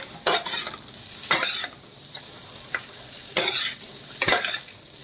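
Chicken chow mein being stir-fried over high flame: a spatula scraping and tossing the noodles in the pan in about four strokes, over a steady sizzle.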